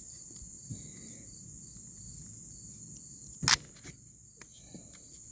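Steady high chirring of crickets, with one sharp metallic click about three and a half seconds in and a few faint ticks after it, from handling a Kel-Tec P-3AT .380 pistol while loading it.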